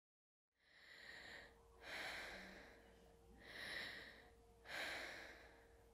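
A person breathing audibly, four breaths about a second long each, one every second and a bit, after half a second of silence.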